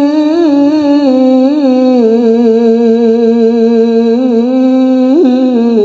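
A male Quran reciter (qari) holding one long melodic note of tilawah into a microphone. The voice is ornamented with small turns, steps down in pitch twice, and rises in a quick flourish near the end.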